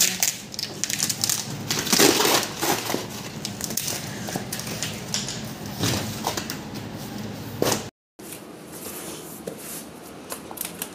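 Cardboard carton being torn open by hand: a series of irregular ripping and tearing sounds of corrugated cardboard and packing tape. It cuts out briefly about eight seconds in, then continues as quieter handling of the box.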